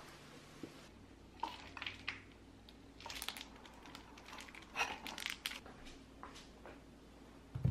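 Kitchen prep handling sounds: irregular short scrapes, light clicks and rustles, including cheese being shredded on a metal grater. A low thud comes near the end.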